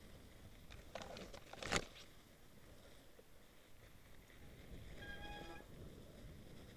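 Mountain bike rolling down a snowy trail, with a low rumble from the tyres and bike. About a second in there is a short rattle of clicks ending in one sharp knock, the loudest sound. About five seconds in comes a brief steady squeal lasting about half a second.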